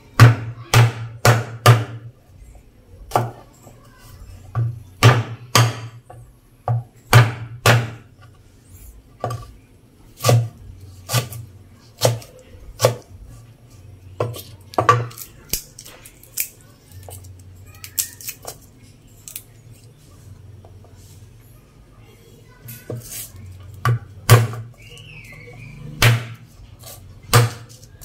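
Kitchen knife chopping ginger and crushing garlic on a wooden chopping board: sharp, irregular knocks of the blade striking the board, each with a dull thud, sometimes several in quick succession.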